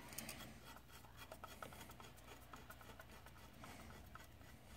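Faint small clicks and scratching of a hand screwdriver turning a screw into a projector lamp housing.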